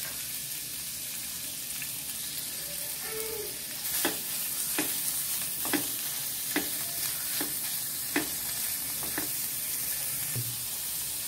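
Sliced onions sizzling in hot oil in a stainless steel kadai, with a spatula stirring them and knocking against the pan in regular strokes a little over once a second from about four seconds in.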